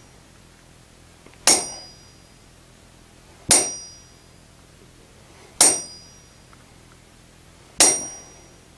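A hammer striking a center punch four times, about two seconds apart, marking hole positions in a steel plate lying on an anvil. Each blow is a sharp metallic tap with a short high ring.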